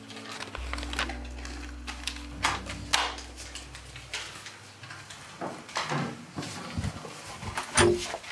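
Irregular knocks and clicks of people moving about a room, with a low steady hum that stops about halfway through.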